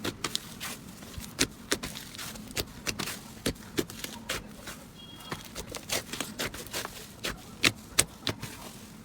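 Slime being squished and worked, giving irregular sharp wet clicks and pops, several a second.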